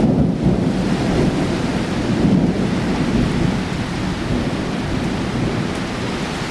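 Torrential cloudburst: heavy rain pouring down steadily, with a deep rumbling wash underneath.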